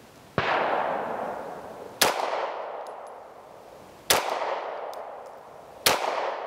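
Four shots from a Walther PDP F 9mm pistol, fired about two seconds apart, each followed by a long fading echo.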